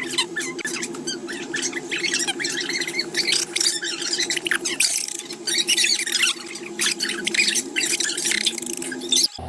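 A crowd of chicks peeping densely and constantly over a steady low hum, all breaking off abruptly near the end.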